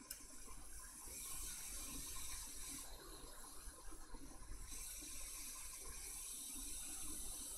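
Hot air rework station blowing a steady hiss over the logic board, heating it until the solder melts. The hiss swells about a second in, eases near three seconds and swells again near five.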